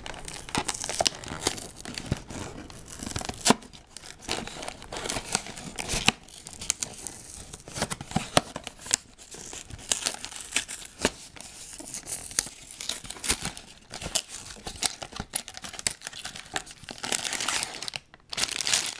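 A cardboard Lego set box being torn open by hand, with ripping and crackling of cardboard and the crinkling of the plastic parts bags inside, broken by sharp clicks and a short pause near the end.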